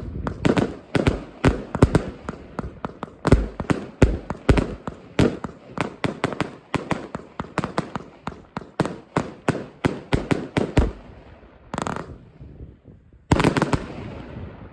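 200-shot compound fireworks battery firing: a rapid string of shots and bangs, several a second, that thins out after about eleven seconds, with one more shot and then a last dense volley near the end.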